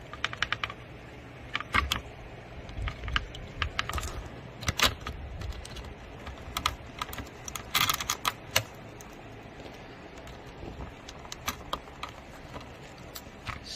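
Irregular light clicks and taps, like typing or small plastic parts being handled, scattered through a low steady background.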